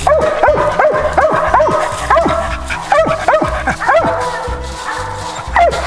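A squirrel dog barking treed: rapid short barks, about three a second, each dropping in pitch, coming in three bursts. Music plays underneath.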